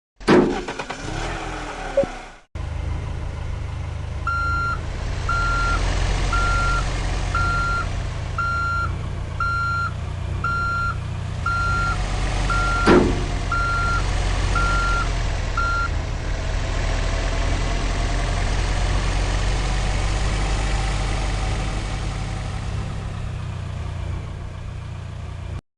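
A heavy construction vehicle's engine running steadily while its reversing alarm beeps about once a second, a dozen beeps, then stops. A single sharp knock comes about halfway through.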